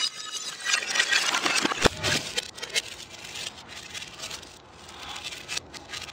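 Plastic bottle fragments crackling, clattering and knocking on concrete steps. The noise is densest in the first two seconds, with one sharp knock near the two-second mark, then thins to scattered clicks.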